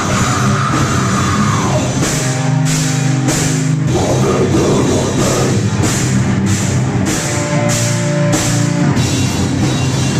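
Live heavy metal band playing loud: distorted electric guitars, bass and a drum kit, with regular drum and cymbal hits through the middle.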